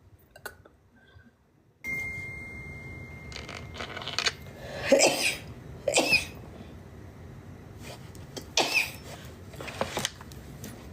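A woman sneezing several times in a row, a sneezing fit. The loudest sneezes come about five and six seconds in, and again near nine seconds.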